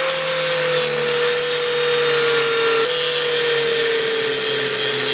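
Angle grinder grinding down fresh welds on a steel clamp, a harsh grinding hiss over the motor's steady whine. The whine sags slowly in pitch and jumps back up about three seconds in.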